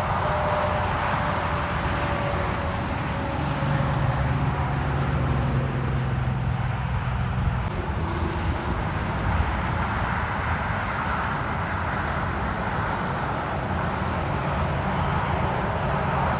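Interstate highway traffic: semi-trucks and cars passing at speed, with tyre and engine noise and strong wind buffeting the microphone. A steady low hum from a passing vehicle rises out of the noise for a few seconds.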